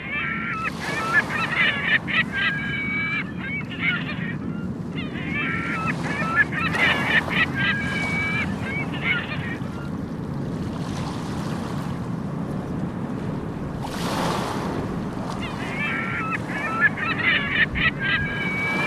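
Gulls calling in three bouts of sharp, rapidly repeated cries over the steady wash of waves breaking on a beach; a wave surges louder about fourteen seconds in.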